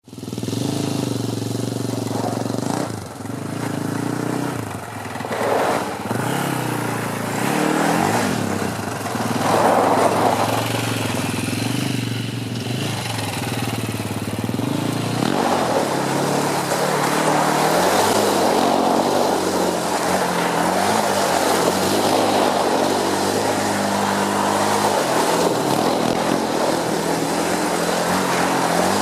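Polaris Outlaw 525 ATV's KTM-built four-stroke single-cylinder engine running and revving, its pitch rising and falling through the first half. It then holds a steadier, harder-worked note from about halfway.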